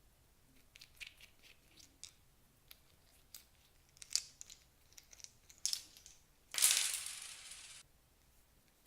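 Clear slime being worked by hand, giving small sticky clicks and crackling pops. Near the end comes one loud hiss, about a second long, that cuts off suddenly.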